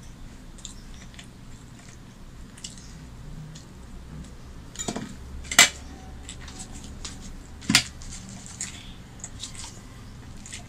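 Tableware clinking as food is picked by hand from steel bowls and a glass plate: a few sharp clinks, the loudest about five and a half seconds in, with lighter ticks between, over a low steady hum.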